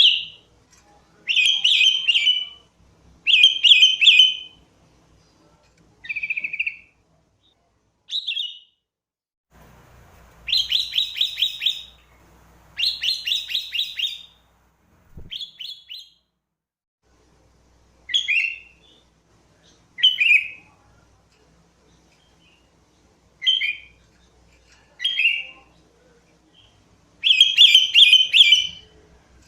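Sooty-headed bulbul (kutilang) singing: short, loud phrases every one to three seconds, several of them fast trills of rapidly repeated notes.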